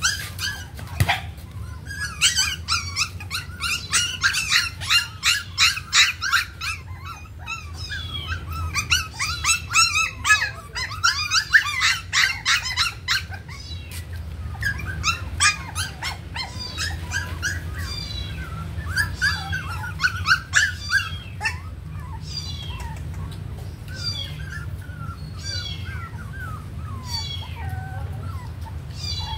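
Puppies squealing and whimpering in a string of short, high-pitched calls while crowding around food bowls. The calls come several a second for the first half and thin out after about fourteen seconds.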